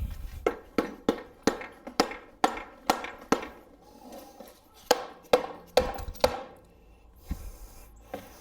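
Repeated sharp strikes on an air-cooled VW engine crankcase, about two a second, knocking the case halves apart; the strikes stop for a while a little over halfway through, come again briefly, then stop.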